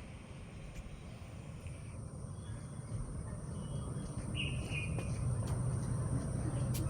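A few short, high bird calls, the clearest about four and a half seconds in, over a low steady rumble that grows louder.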